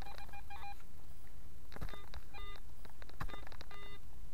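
Metal detector sounding short multi-pitch beeps in quick clusters, several times, as it signals a large buried target in the dig hole. A few sharp knocks of a shovel working the soil fall between the beeps.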